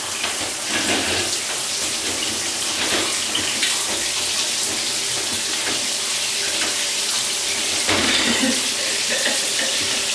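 Shower running: a steady spray of water inside a tiled shower cubicle.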